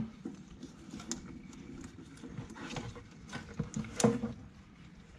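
Scattered clicks and knocks of rubber and plastic as a car's corrugated air-intake hose is worked loose by hand, with sharper knocks at the start, about a second in and about four seconds in.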